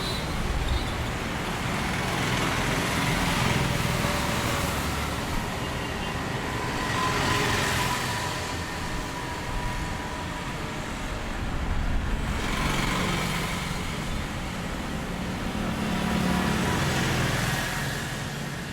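Road vehicles driving past one after another on a traffic road: engine and tyre noise swells and fades about four times as each passes.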